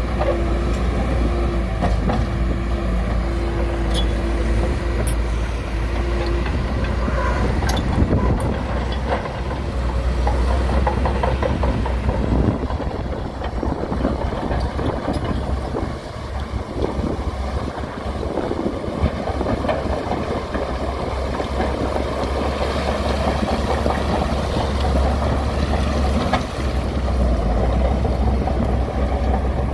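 Bulldozer's heavy diesel engine running under load, with rough clanking and scraping of the tracks and blade working gravel. A steady tone sounds over the engine for the first six seconds.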